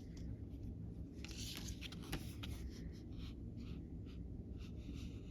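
Soft scratchy handling noises of plastic Lego pieces being moved about by hand, with one sharper click about two seconds in.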